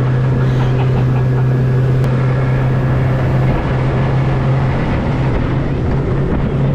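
Mercury four-stroke outboard motor running steadily at speed, with the boat's hull slapping through water and wind rushing past.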